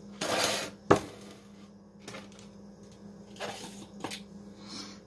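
Kitchen handling noises over a bowl of seasoning: a few short rustling bursts and a sharp click about a second in, with a smaller click near four seconds, as containers are handled.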